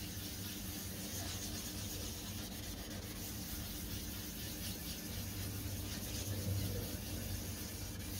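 800-grit wet-and-dry paper on a hand sanding block, wet-sanding a plastic headlight lens with steady back-and-forth rubbing strokes. This grit stage takes out the scratches left by the 400-grit paper.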